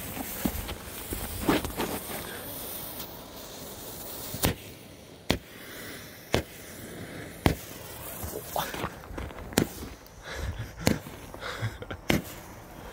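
A small consumer firework cake buried in snow: the lit fuse hisses, then the cake fires a string of sharp bangs from under the snow, starting about four seconds in and coming unevenly, one every second or two.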